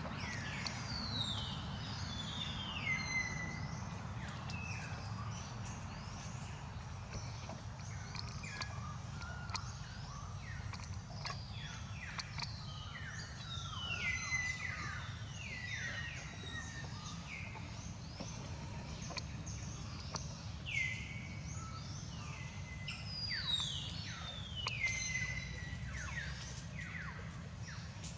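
High whistled animal calls, each sliding down in pitch and levelling off, come again and again in overlapping runs. Under them runs a steady low outdoor rumble.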